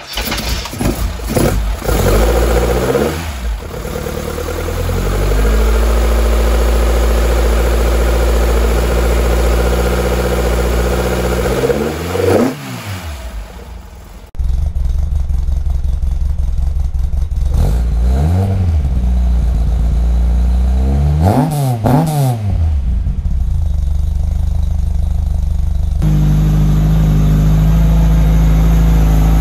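1977 Ford Escort RS2000's Harris-built four-cylinder engine on twin sidecar carburettors, heard in the engine bay as it fires up and runs at a fast idle with sharp rises and falls of revs. About halfway through, the sound cuts to the engine idling with two quick throttle blips. Near the end it cuts again to a steady idle heard from the exhaust.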